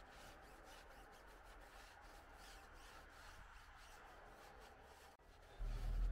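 Foam applicator pad rubbing over a car tyre's rubber sidewall: faint, irregular wiping strokes. Near the end a much louder low rumble comes in.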